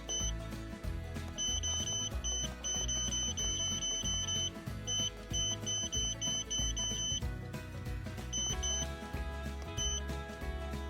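Short electronic beeps from a handheld OBD-II scan tool as its buttons are pressed: a quick run of about four beeps a second, then a few single beeps, over background music.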